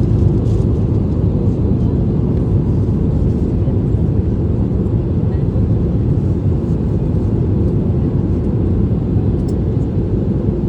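Steady low rumble of an airliner cabin in flight: jet engine and airflow noise heard from inside the cabin, even and unchanging.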